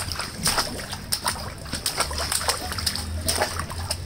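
A baby splashing in a shallow inflatable paddling pool, her hands slapping the water in an irregular run of splashes, about two or three a second.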